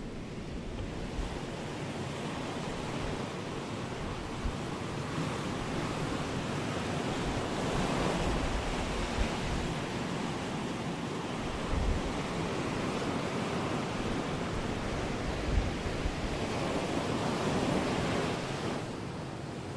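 Ocean surf breaking and washing up over the shore, the rush swelling a couple of times and easing off near the end.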